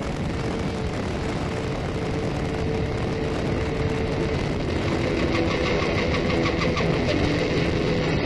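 Cruiser motorcycle engines running at highway speed, with steady road and wind noise.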